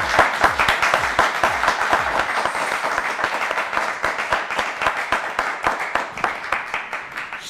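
A group of people applauding, thick clapping that slowly dies down toward the end.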